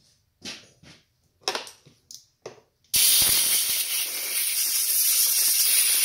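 A few light clicks and rattles of plastic connectors being handled, then, about three seconds in, a loud steady hiss of an aerosol spray that runs for about three seconds and cuts off near the end.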